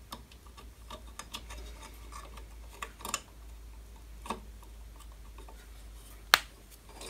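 Small metal clicks and taps of a T-handle hex key working a screw as a metal limits bracket is fitted to a drill press knee. One sharp click about six seconds in is the loudest.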